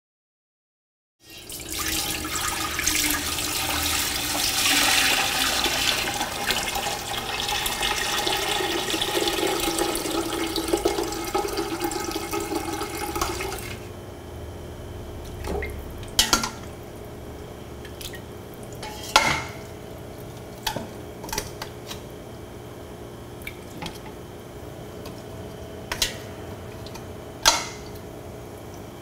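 Liquid pours steadily into a large stainless-steel stockpot for about twelve seconds, rising slightly in pitch as the pot fills, then stops. After that, metal tongs click sharply against the pots a few times as beef bones are lifted into the water.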